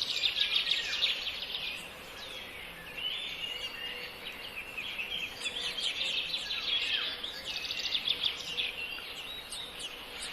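Small birds chirping: many short, high calls overlapping rapidly, with a brief lull about two seconds in before the chirping picks up again.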